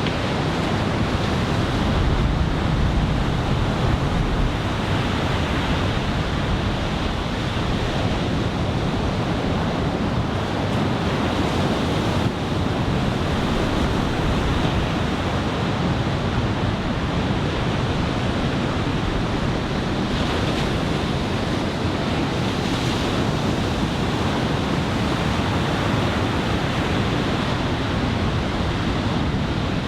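Ocean surf from a building typhoon swell, with waves breaking continuously into a steady wash. Wind is rumbling on the microphone.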